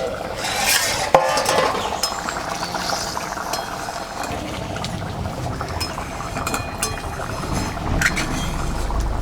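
Cooking pot being uncovered with a sharp clink about a second in, then a spoon stirring and clinking against the pan of potatoes in poppy-seed paste.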